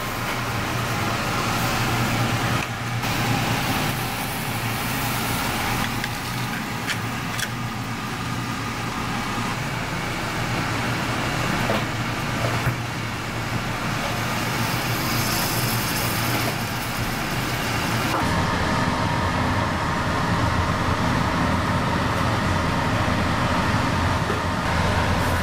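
Steady mechanical hum with an even noise over it, and a few sharp clicks; the hum grows slightly louder about two-thirds of the way through.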